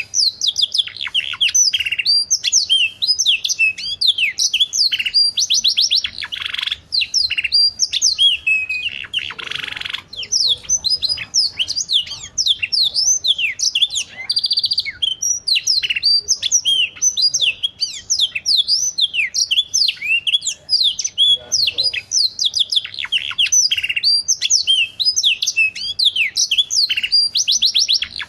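Domestic canary singing a long, unbroken song of fast trills and quick rising and falling whistled notes.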